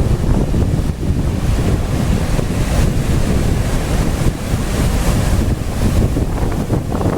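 Gale-force wind of about 39 knots buffeting the microphone in a steady low rumble, over the rush of large waves on the lake.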